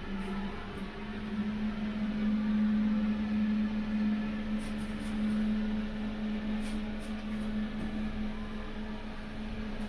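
A steady hum at one pitch, with a few faint ticks about halfway through.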